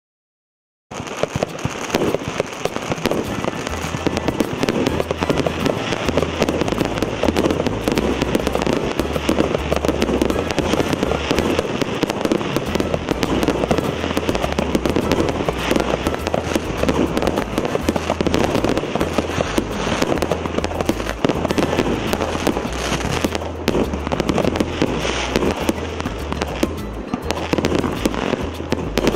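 A 19-shot, 1.25-inch firework cake firing, its shells launching and bursting in quick succession as a dense, unbroken stream of bangs and pops that starts suddenly about a second in.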